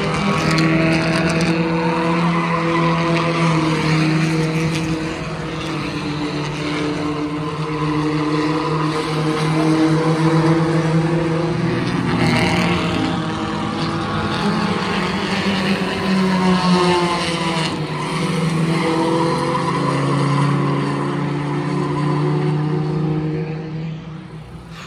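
Several race cars' engines running on track at speed, their pitches rising and falling as the cars come around. The sound drops in level just before the end.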